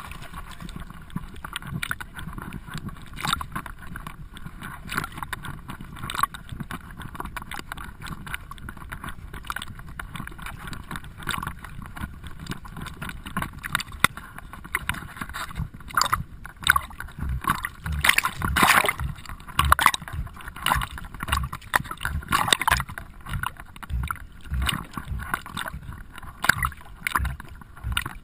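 Water splashing and lapping right at a camera riding on the back of a swimming Cavachon as it paddles, irregular at first and then louder and more rhythmic in the second half.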